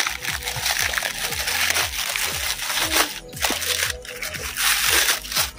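Thin plastic packaging crinkling and rustling as it is pulled off a cosmetics box by hand, with a couple of brief pauses.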